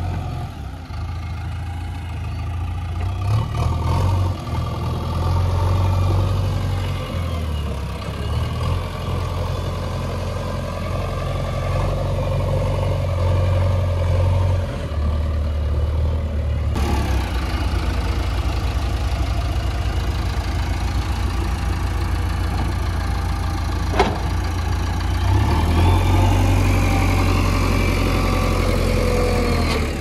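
JCB 3DX backhoe loader's diesel engine running as the machine drives, its note shifting up and down with the throttle. One sharp click about three-quarters of the way through.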